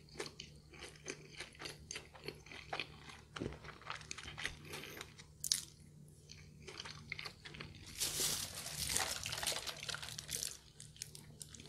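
A person chewing a mouthful of McDonald's fast food, close to the microphone: a run of small, irregular crunches. About eight seconds in, a denser noise takes over for around two seconds.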